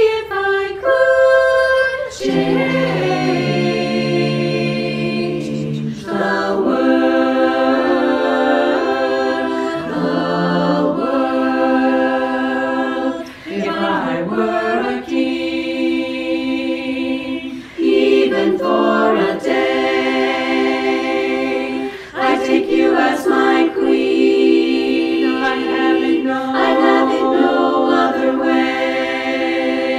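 Women's chorus singing a cappella in close harmony, holding long chords phrase after phrase with short breaks between them.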